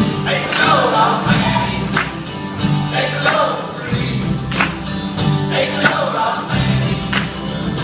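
A live band performing a song, with several voices singing together over the instruments and sharp percussive hits.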